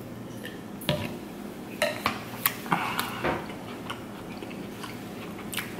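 Drinking from a glass of milk and chewing, with a few short clinks and knocks of the glass being handled.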